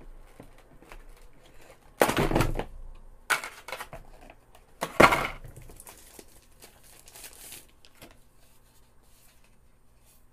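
Packaging of an external hard drive being handled and torn open: three loud crinkling, tearing bursts about two, three and a half and five seconds in, with softer rustling between.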